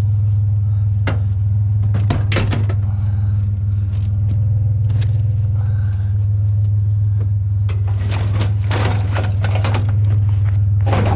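Scrap being shifted around in a pickup truck bed: metal frames, a ladder and a fan knocking and scraping against each other, with a busy run of rattling about eight to ten seconds in. Under it the truck's engine idles with a steady low hum.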